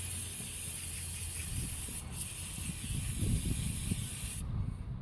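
Aerosol brake cleaner spraying onto drum brake parts in one long, steady hiss, broken for an instant about two seconds in and stopping shortly before the end.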